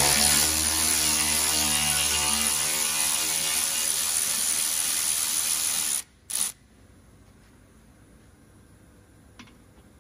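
Cordless power tool spinning a socket on an extension bar, undoing a fastener in a van's front bumper undertray. Its motor whine runs for about six seconds, stops, and gives one short burst just after, followed by a faint click near the end.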